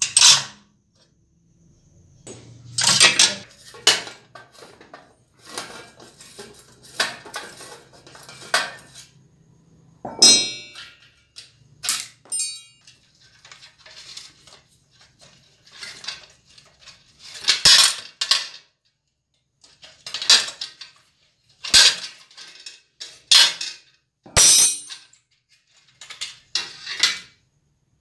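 Hand tools and steel bicycle parts clinking and knocking against each other as an old rusted bicycle is taken apart, with a sharp metal strike every second or two and a short ringing after a couple of them.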